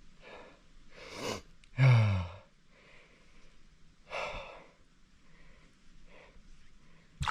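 A person breathing heavily, with a few sharp breaths and a short falling vocal sound about two seconds in. Loud water splashing starts suddenly right at the end.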